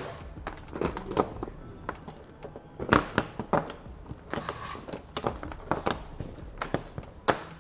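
Irregular clicks, knocks and rustling, with a brief hiss about four and a half seconds in.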